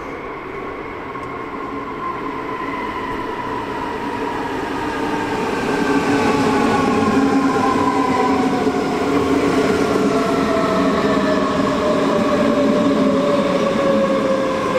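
Electric train approaching and slowing, its traction motors whining in a pitch that falls slowly throughout, over a heavy running rumble. It grows louder over the first six seconds, then holds steady and loud.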